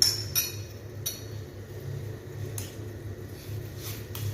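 Kitchen utensils clinking against a metal saucepan: three sharp, ringing clinks in the first second, then a few fainter taps, over a steady low hum.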